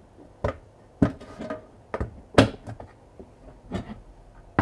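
Sharp clicks and snaps of the Becker BM24 amplifier module's top cover being prised off by hand as its edge is pulled upwards: about five separate clicks, the loudest about two and a half seconds in.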